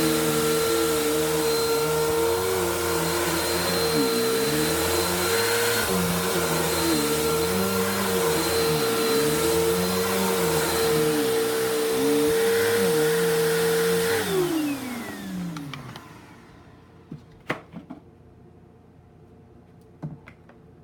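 Bissell vacuum cleaner running with a steady high motor whine, its lower hum wavering up and down, then switched off about fourteen seconds in and winding down over a second or so. A few short clicks follow near the end.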